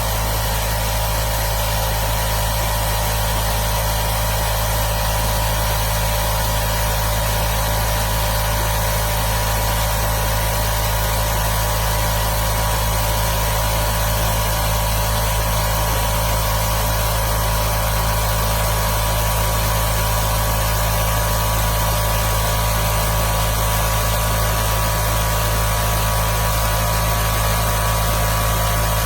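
Oil-free electric air compressor running steadily: a constant hum with no change in pitch or level.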